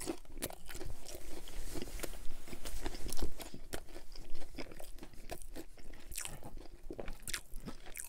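A person chewing a mouthful of thin cauliflower-crust pizza, with irregular crisp crunches from the browned crust.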